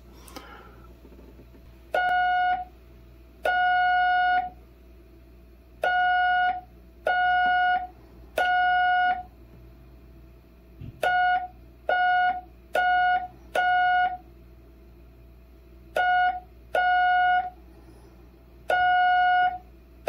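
Hand-keyed Morse code tone, a steady buzzy note near 700 Hz, spelling 'AS HIM' very slowly: A (2 tones), S (3), H (4), I (2), M (2, the last running past the end). Every dit is dragged out almost as long as a dah, with long gaps between letters and a longer gap before 'HIM'. This is the slow, old-method timing, so slow that it is hard to read.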